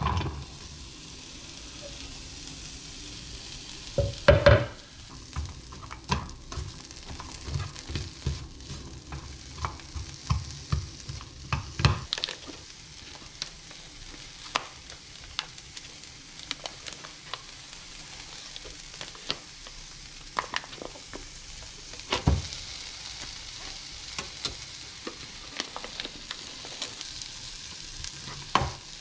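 Sliced red onion frying in a pan with a steady sizzle, under repeated knocks and scrapes of a utensil stirring it; the loudest clatter comes about four seconds in, with single louder knocks later.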